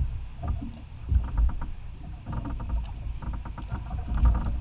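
Low rumble with repeated rattling clicks and knocks on a small fishing boat, the handling and mounting noise of a GoPro camera.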